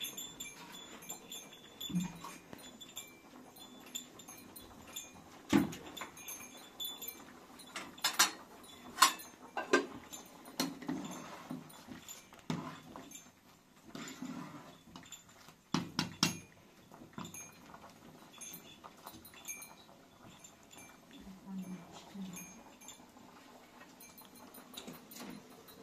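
Metal spoon clinking and knocking against a steel cooking pot as rice milk is stirred on a gas stove, a scatter of sharp knocks between quieter scraping.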